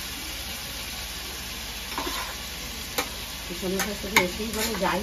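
Steel spoon stirring and scraping through rice in a metal pot, with a few sharp clinks of spoon on pot about three and four seconds in, over a steady sizzle from the frying pan.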